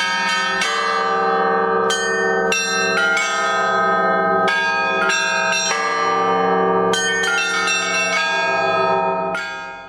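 Russian Orthodox church bell-ringing: several bronze bells of different pitches struck over and over, their tones overlapping, dying away near the end.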